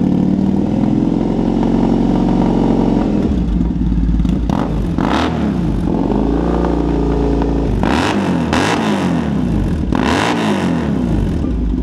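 Triumph Bonneville T120's 1200 cc parallel-twin engine idling at standstill, then revved several times from about four seconds in, its pitch rising and falling with each blip of the throttle.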